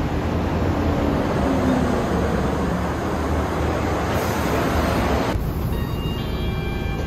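Scania K230UB city bus with its nine-litre five-cylinder diesel pulling in and slowing, a whining note falling as it slows under steady engine and road noise. About five seconds in, the sound cuts to inside the bus's cabin, with the engine running underneath and a few short high tones.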